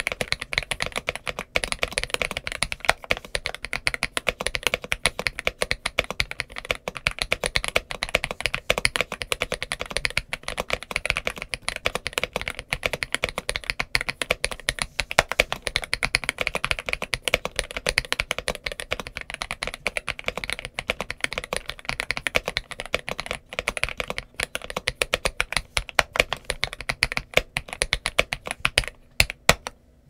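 Steady fast typing on a GMK87 mechanical keyboard fitted with Leobog Graywood V4 switches and Cherry-profile dye-sub PBT keycaps: a dense stream of key clacks that thins to a few separate presses near the end.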